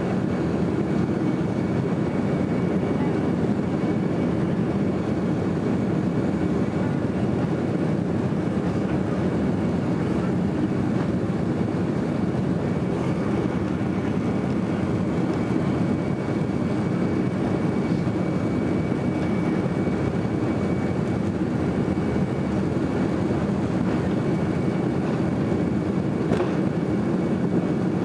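Cabin noise inside a Boeing 767-400ER as it taxis: a steady rumble from the jet engines and airframe, with a faint high whine held at one pitch. A single small click comes near the end.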